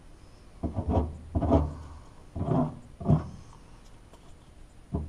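A flat spreader scraping and smearing 3M panel bond adhesive over the firewall sheet metal, about four loud strokes in the first half.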